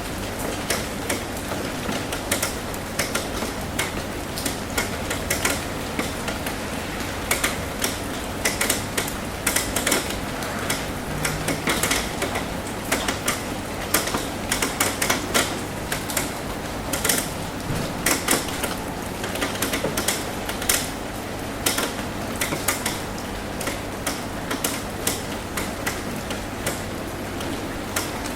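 Rain drumming on a metal roof: a steady wash of rainfall with irregular sharp taps of individual drops striking the sheet metal, several a second.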